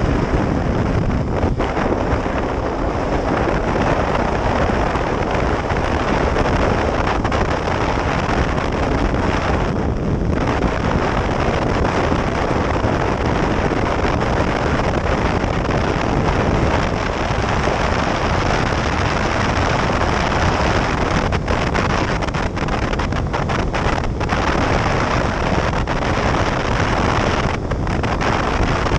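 Wind buffeting the microphone of a rider on a Kawasaki Ninja 300 moving at road speed, a loud steady rush that covers the motorcycle's parallel-twin engine running beneath it.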